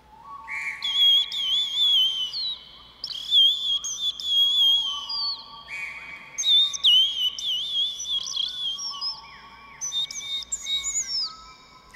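Bird-call whistles played to imitate birdsong: warbling, trilling calls in several phrases, with steadier held whistle tones beneath them.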